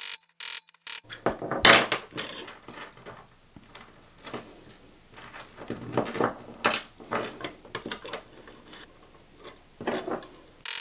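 Stainless steel jubilee watch bracelet being sized: irregular metallic clicks and clinks as a split pin is pushed out with a pin tool in a plastic holder block and the removed links are handled against the wooden table. The loudest click comes about two seconds in.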